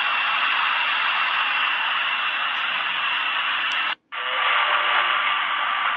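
Shortwave static and hiss from a HanRongDa HRD-747 portable receiver's speaker, with a thin steady whistle in it. About four seconds in the audio cuts out for a moment as the radio is retuned, and the hiss comes back with a faint station starting to come through.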